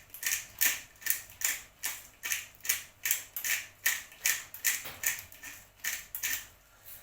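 Hand pepper grinder being twisted, a steady run of short crunchy grinding strokes a little over two a second, stopping shortly before the end.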